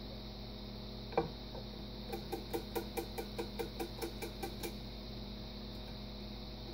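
Wood lathe running with a steady hum while a turning tool cuts the face of a spinning wooden platter. There is a single knock about a second in, then a run of quick ticks, about five a second, for a couple of seconds.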